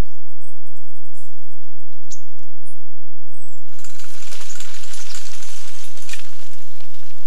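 Faint small-bird chirps and light clicks, then, from about halfway in, a loud burst of rustling and crackling lasting about three seconds, as an animal runs off through dry leaves and undergrowth.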